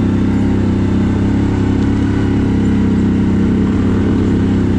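CFMoto 1000 ATV's V-twin engine running at a steady speed while riding.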